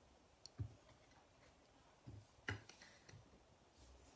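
A few faint clicks and taps of hard plastic card holders being set into stands and slid across a tabletop, the loudest tap about two and a half seconds in.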